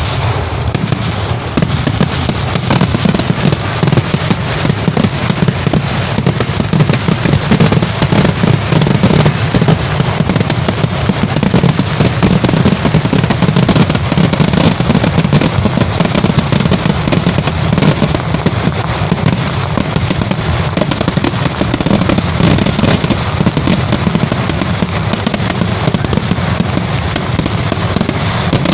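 A dense, continuous barrage of festival firecrackers: rapid cracks and bangs running together without a break, with heavy low booming underneath.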